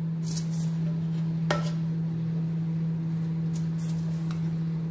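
A metal serving spoon scraping and clinking against a cooking pot and plate while cooked rice is dished out: a few light scrapes and clinks, the sharpest about a second and a half in, over a steady low hum.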